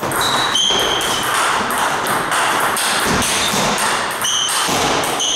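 Table-tennis ball struck back and forth in a rally: short, clear pings of the ball off the paddles and table, a few near the start and more near the end with a gap of about three seconds between, over a steady noisy background.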